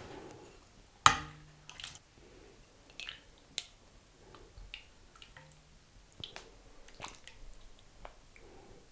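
A metal ladle knocking against a stainless steel pot about a second in, ringing briefly, then soft slops and drips of soup being ladled into a bowl, with a few light clinks and a second ringing knock midway.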